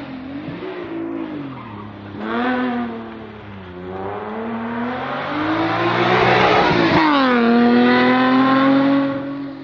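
A competing car's engine revving hard as it climbs the hill. Its pitch rises briefly about two seconds in, then builds to its loudest around six to seven seconds. There it drops sharply and settles into a steady note.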